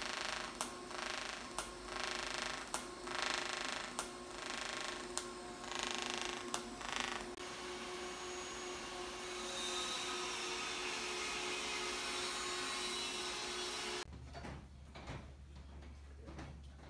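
Arc welding on a hand-made sheet-steel motorcycle fuel tank: short bursts of crackling hiss, each starting with a sharp click, about one a second, as the welder strikes the arc again and again. After about seven seconds this gives way to a steadier hiss, and near the end there is only a low hum.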